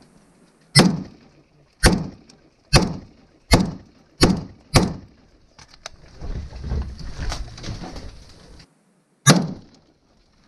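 Close-range rifle fire: six loud gunshots in quick, uneven succession over the first five seconds, then one more about nine seconds in.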